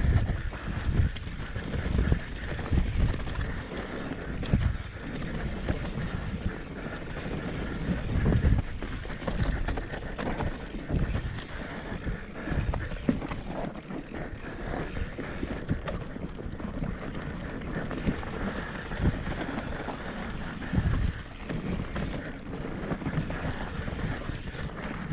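Mountain bike rolling fast down a dry dirt trail: tyres running over the dirt and irregular low thumps as the bike hits bumps, under heavy wind buffeting on the microphone.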